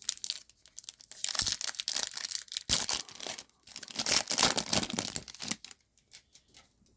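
A baseball card pack's wrapper is torn open and crinkled in a run of crackly bursts, which stop about two-thirds of the way through.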